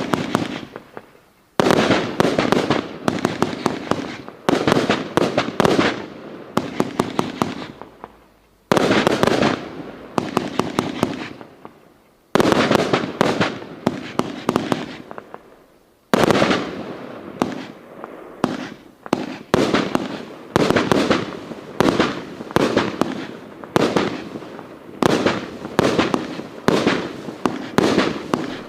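Riakeo Peking Opera 100 firework battery firing. Salvo after salvo of sharp bangs, each trailing off into dense crackling, with a new salvo starting every one to two seconds.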